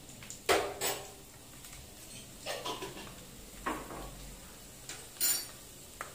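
Five or six sharp clinks of metal kitchen utensils and cookware, the loudest about half a second in and another strong one near the end, over a quiet background.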